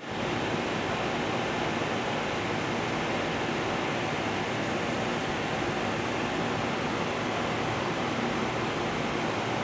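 Steady, even rushing noise with no clear source and no distinct events.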